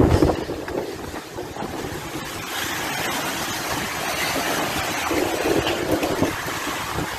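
Hurricane-force wind buffeting a phone's microphone in gusts over a steady hiss of wind-driven rain; the gusts are strongest at the very start and again about five to six seconds in.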